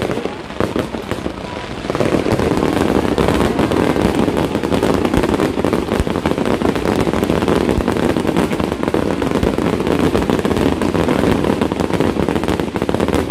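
Fireworks display: a dense, continuous run of rapid bangs and crackling, which gets louder about two seconds in and keeps going almost to the end.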